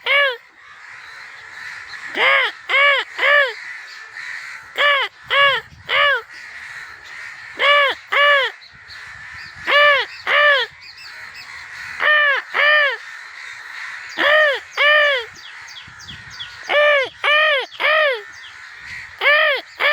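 Crows cawing in short bursts of three or four harsh caws, one burst about every two to three seconds.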